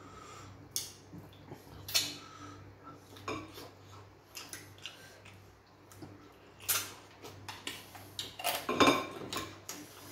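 Eating by hand: fingers scooping fufu and okro soup from plates and bowls, with scattered clinks and taps against the dishes and wet mouth sounds of chewing. The loudest clusters come about seven and nine seconds in.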